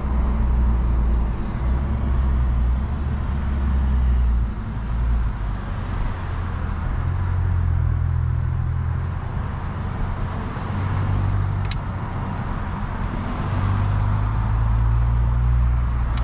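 Engine drone and road noise of a 2021 Brabus-tuned Mercedes-Benz CLS heard from inside the cabin while driving, the low engine hum shifting gently up and down in pitch. A single sharp click about twelve seconds in.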